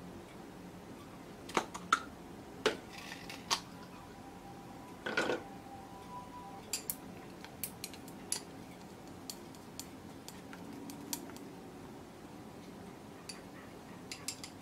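Irregular clinks and taps of a utensil against a small glass bowl as raw egg yolks are beaten, with one longer rattle about five seconds in.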